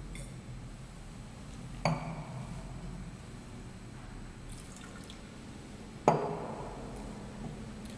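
Wine glass set down with a clink on a wooden barrel head about two seconds in. Wine is then spat softly into a stainless-steel spit cup, and the cup is set back down on the barrel with a louder knock about six seconds in.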